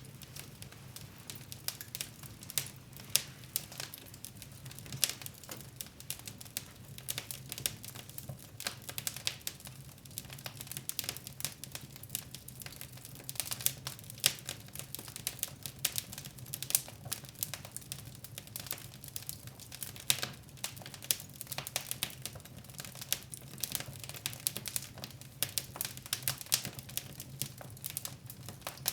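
Fire in a fireplace crackling, with irregular sharp pops and snaps of varying loudness over a low steady hum.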